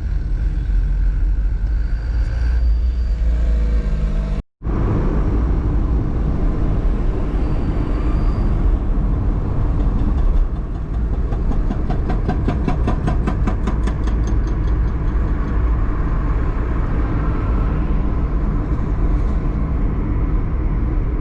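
Car driving, with steady engine and road rumble heard from inside the cabin. The sound cuts out for a moment about four seconds in. About halfway through, a rapid, even ticking runs for a few seconds.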